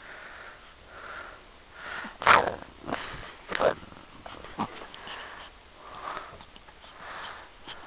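Puppy sniffing and snorting in a string of short, breathy puffs, the sharpest about two seconds in.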